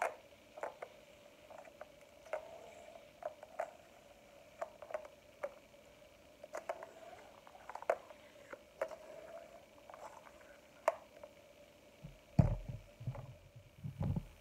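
Scattered light clicks and clinks of a glass-and-metal tea plunger (French press) and its lid being handled, with a few low thumps about twelve seconds in as it is set down.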